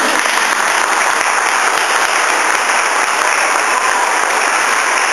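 Applause: a crowd and the choir clapping their hands, a dense, steady clatter of many claps.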